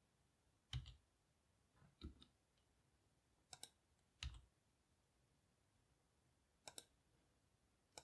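Faint clicks of a computer keyboard and mouse, about six separate clicks, some in quick pairs.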